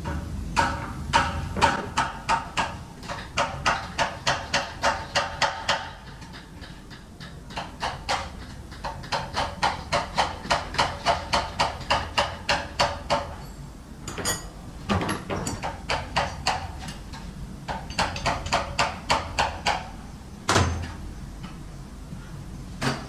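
Rapid, evenly spaced clicking, about five clicks a second, in several runs of a few seconds each with short pauses between them. One heavier thump comes near the end.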